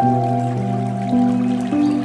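Calm, slow instrumental new-age music of sustained tones, the notes changing about every half second, with faint trickling water beneath it.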